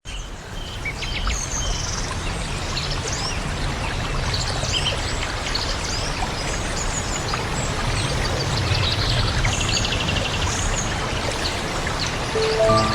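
Small birds chirping and calling over a steady rushing background noise, with a rapid trill about ten seconds in. Soft music begins near the end.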